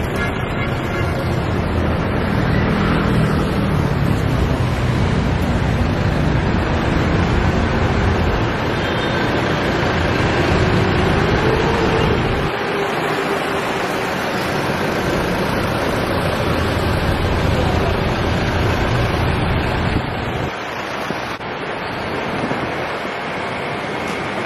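City street traffic noise with wind buffeting the microphone, a low rumble that drops out abruptly about halfway through and again near the end.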